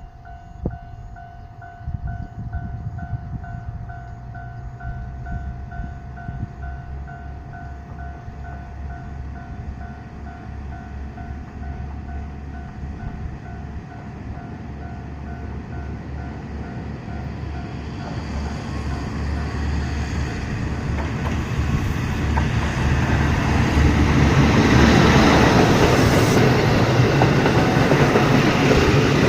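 A two-car diesel railcar train pulling away, its engine rumbling low as it accelerates from about two seconds in. The train grows steadily louder from about two-thirds of the way in, with wheels clattering on the rails as it passes close. Through the first half an electronic bell rings in a steady pulse, then stops.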